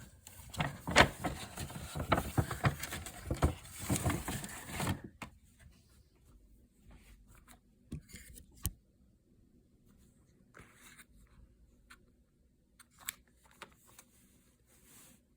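Packaging being handled and opened by hand: about five seconds of dense rustling and crackling with sharp clicks, then only scattered light clicks and taps.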